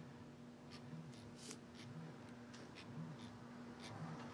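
Faint steady hum of the AXIBO robotic camera mount's motors running at a higher speed, with scattered light ticks and a low pulse about once a second.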